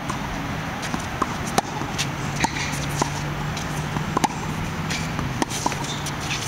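Tennis rally on a hard court: sharp pops of the ball being struck by racquets and bouncing off the court, every second or so, over a steady low hum.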